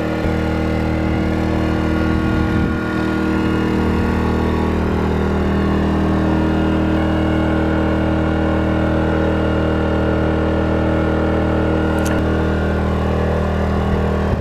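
Small portable inverter generator engine running steadily at high speed, a constant pitched drone. A brief click sounds near the end.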